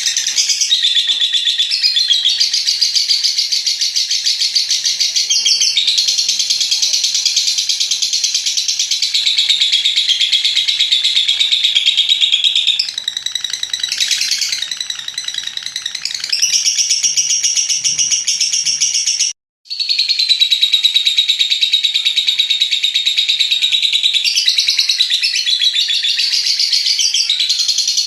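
Lovebird's long 'ngekek' song: a rapid, high-pitched, unbroken chattering trill held for many seconds at a time, with a few short breaks. The sound cuts out completely for an instant about two-thirds through.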